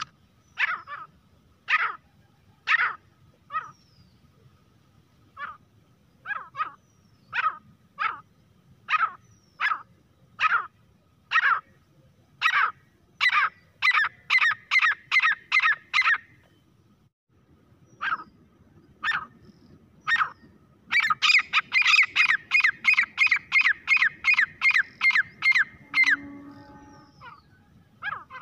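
Grey francolin calling: short, sharp notes repeated about once a second, quickening to three or four a second. After a short pause comes a louder, fast run of notes that stops about two seconds before the end.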